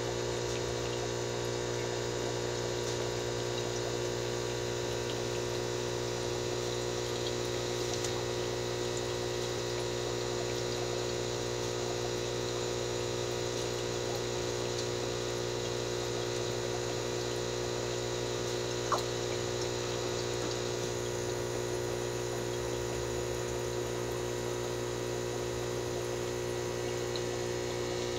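Aquarium air pump humming steadily, with water bubbling from the sponge filter it drives; one brief click about two-thirds of the way through.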